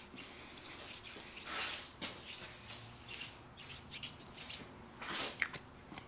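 Aerosol can of Weld-Aid anti-spatter sprayed onto a welding positioner's steel chuck in a series of short hissing bursts.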